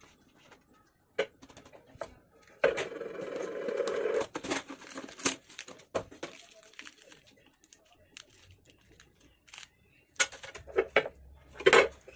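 Handling noise from a 6x9" car speaker on a stone countertop: scattered knocks and clicks as it is put down and moved, a scraping rub lasting about a second and a half near three seconds in, and a quick cluster of sharp clicks near the end.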